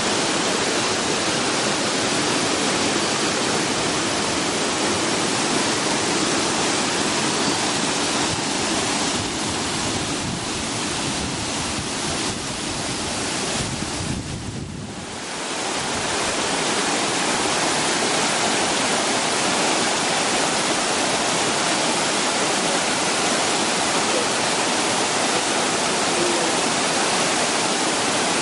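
Yoro Falls, a waterfall, with its water falling in a steady, even rush. The sound dips briefly about halfway through, then goes on as before.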